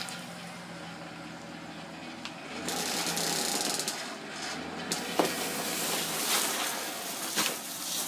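Pickup truck engine running steadily at low speed as it pulls the rope that strips the hide off a deer carcass. A rough hiss lasts about a second, around three seconds in, and a few sharp clicks are scattered through.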